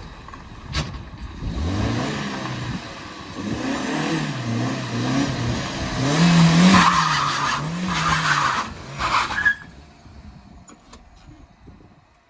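Car engine revving up and down while the tyres squeal and scrub, loudest in a stretch from about six to nine seconds in, then cutting off. It is a failed attempt to slide the car: the tyres are too grippy.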